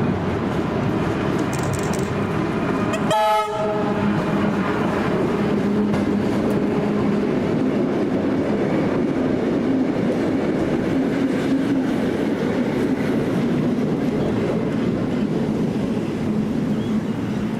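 Tait electric suburban train giving one short horn blast about three seconds in, then running on steadily with wheel and rail noise and a low hum.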